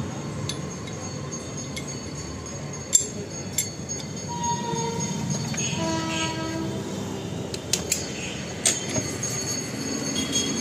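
Electric drill running, its twist bit cutting into steel, with a steady high whine and sharp clinks of metal now and then. From about four seconds in, a separate pitched horn-like tone sounds for a couple of seconds, changing note.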